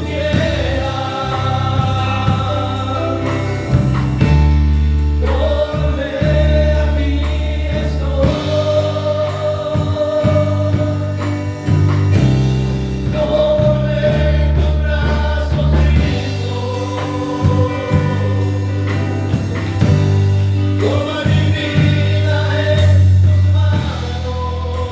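Christian worship music: long held vocal notes over a steady bass line, with a light regular tick high above.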